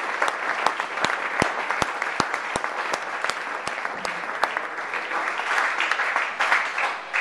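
A room full of people applauding, steady clapping that swells again near the end and then dies away.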